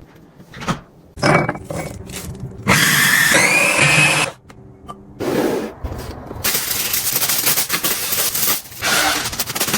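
Household items and packaging being handled during kitchen restocking: a few knocks, then a scraping, rustling sound with a rising whine in it, and near the end a longer hiss-like rustle.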